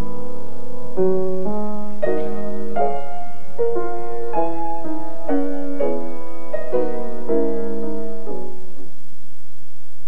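Background piano music: a melody over chords, the notes changing about every half second to a second, dying away shortly before the end.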